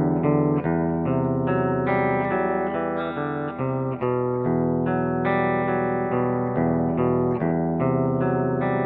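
Electric guitar played clean through a Seymour Duncan SH-8 Invader humbucker: picked single notes and chord tones changing about two or three times a second, ringing over a sustained low note.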